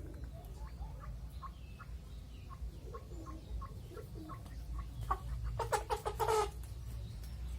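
Chickens clucking: a run of short soft clucks, then a louder burst of rapid clucks about six seconds in, over a steady low rumble.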